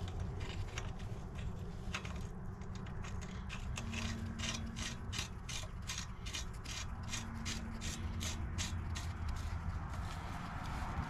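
A hand ratchet clicking in quick, even strokes, about three clicks a second, as it runs the nut onto the trailer ball coupler's bolt.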